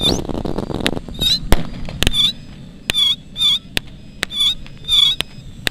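Pyrotechnic charges going off in a mock bombing run: a loud rushing noise in the first second, then a string of sharp firecracker bangs, the loudest about a second and a half in. Short honk-like calls sound between the bangs.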